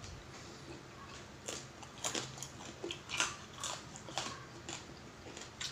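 Close-up eating sounds: bites and chewing of crisp food, a quick run of short crunchy clicks beginning about a second and a half in.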